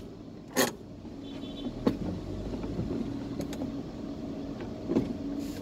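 Car engine idling, heard from inside the cabin as a steady low hum, with a few sharp knocks and a short high beep about a second and a half in.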